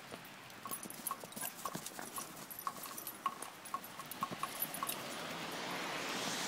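Two dogs running about on thin snow, their feet making quick, irregular footfalls. A steady hiss builds up in the last second or so.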